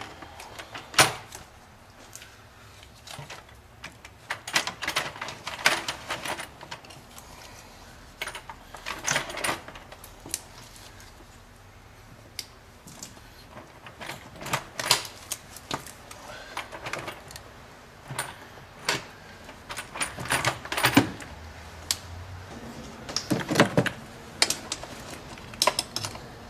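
Scattered clusters of small clicks and clinks from hand tools and bolts while a plastic intake manifold is set in place and its bolts are started by hand.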